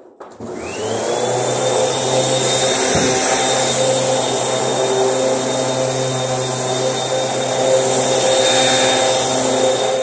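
Eureka AirSpeed AS1002a upright vacuum cleaner switching on: its motor spins up with a whine that rises over about the first second, then runs at a steady high whine over a low hum.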